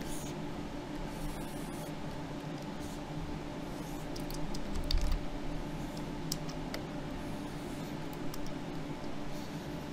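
Scattered light clicks of a computer keyboard over a steady low hum with several held tones.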